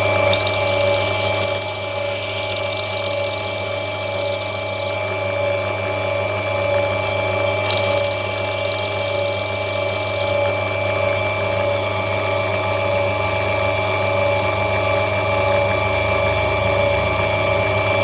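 Lapidary grinding machine's motor running with a steady hum, water-cooled wheel turning. Twice the opal is pressed onto the wheel, giving a hissing grind of a few seconds each time.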